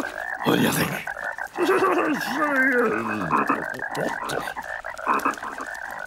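Cartoon frogs croaking continuously.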